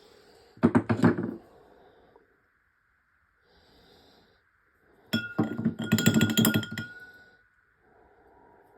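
Screwdriver clinking and rattling against a glass container of acetone as it is dipped: a short burst of clinks about half a second in, then a longer run of rapid clinks from about five to seven seconds with a faint ringing tone.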